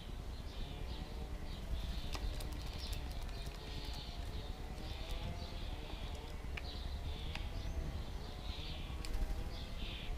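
Small garden birds chirping over and over, with scattered sharp clicks and a steady low rumble of wind on the microphone.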